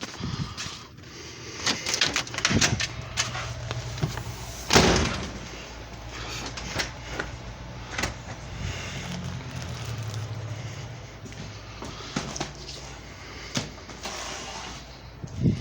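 DVD cases and packaging being handled: scattered clicks, rustles and knocks, one loud knock about five seconds in, over a low steady hum.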